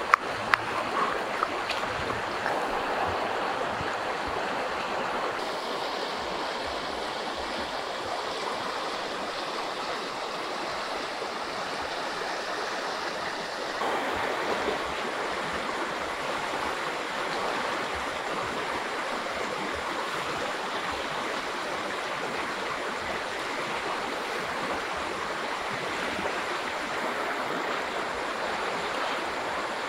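Steady rushing of a flowing river. Right at the start come a few sharp knocks of a stone pestle pounding in a mortar.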